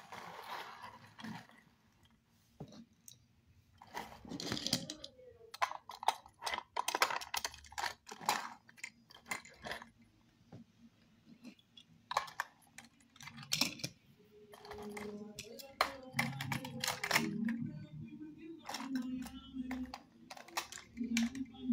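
Small die-cast toy cars being picked up, set down and rolled on a wooden surface: an irregular run of sharp clicks and clatters.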